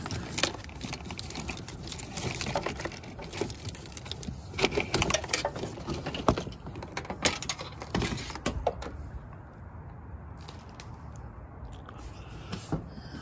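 Loose automotive wiring being pulled and handled, rustling and scraping with many quick clicks and taps of wire and plastic; busy for about the first nine seconds, quieter after.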